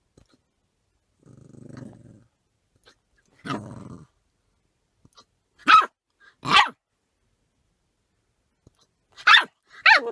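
A puppy with the hiccups growling low, then giving short, sharp, high-pitched barks: one about three and a half seconds in, a pair around six seconds, and another pair near the end.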